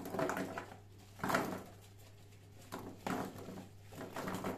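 Diced raw potato cubes tipped from a plastic bowl onto a metal baking tray, landing in a few separate knocks, the loudest about a second in.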